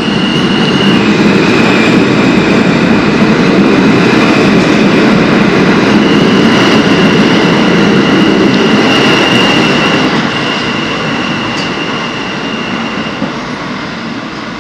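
R160 subway train pulling out of the station: a loud rumble of cars rolling close by, with a high steady whine over it. The sound fades after about ten seconds as the train runs off into the tunnel.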